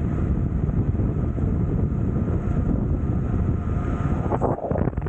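Wind buffeting the microphone over the rumble of an electric skateboard's wheels rolling on asphalt. It briefly dips, with a few sharp clicks, about four and a half seconds in.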